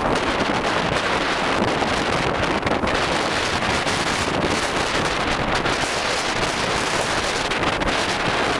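Strong wind buffeting the microphone: a steady, loud rushing noise with no letup.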